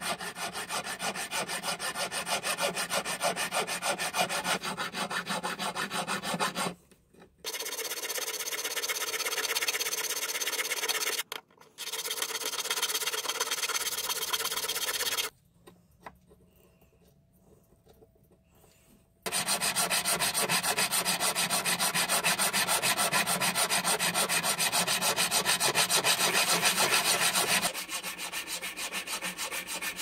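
Hand file scraping a silver tube with quick, even back-and-forth strokes. The filing comes in several stretches with short breaks, goes quiet for a few seconds about halfway, then returns louder.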